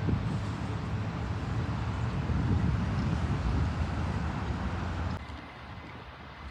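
Jet aircraft engine roar mixed with wind buffeting the microphone; the sound drops off abruptly about five seconds in.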